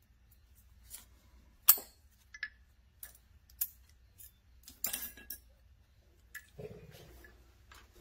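Lock picks and a tension wrench clicking and clinking against a brass Corbin padlock as they are handled and worked into the lock: a series of sharp metallic clicks, the loudest about two seconds in, a quick cluster around five seconds and a duller knock near the end.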